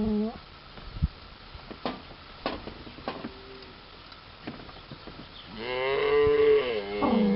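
Dairy cow mooing. The end of one moo comes at the start, then a few faint knocks, then a long wavering moo about two-thirds of the way in. That moo runs straight into a second moo that falls in pitch near the end.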